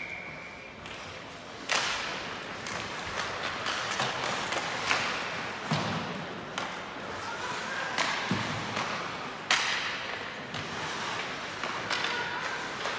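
Ice hockey play in a rink: a string of sharp knocks and thuds from sticks, puck and boards over a steady hiss, with a brief whistle tone at the very start.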